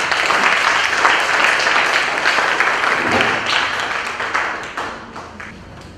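Audience applauding with many hand claps, dying away over the last second or two.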